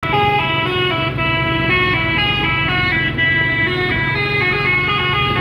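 A truck's Basuri 'telolet' multi-trumpet air horn playing a quick melody of stepped notes, over a steady low engine hum.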